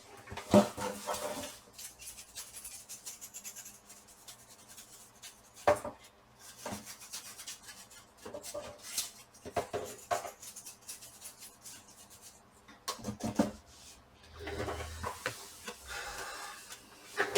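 Plastic laptop back cover being handled and cleaned: scattered clicks and knocks of the plastic, with light scraping between them and a longer stretch of rubbing near the end.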